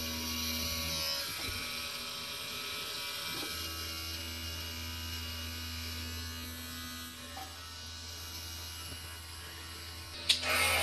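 Small battery electric trimmer switched on and buzzing steadily, weakening for a couple of seconds early on. A single sharp click comes near the end.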